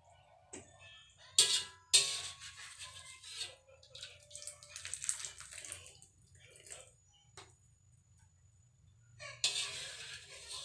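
Hot water splashing and pouring in several uneven bursts as boiled instant noodles are tipped out of the pot, with a few sharp clinks between.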